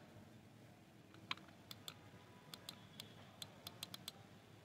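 Faint keystrokes on a computer keyboard, a short run of about a dozen quick taps starting about a second in, as a short word is typed.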